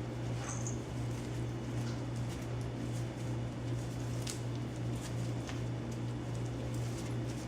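Steady low hum with faint scattered clicks and scuffles of young puppies moving about as they play, and a brief high squeak about half a second in.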